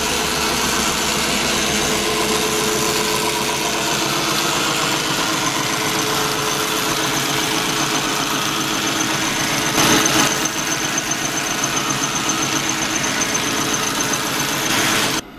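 Milling machine running a cut on metal: a steady, loud machining noise with a high whine, briefly louder about two-thirds of the way through, then stopping suddenly just before the end.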